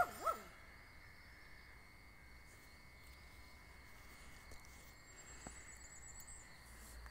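A dog gives two or three short yips right at the start, then the air is near quiet, with only a faint steady high tone.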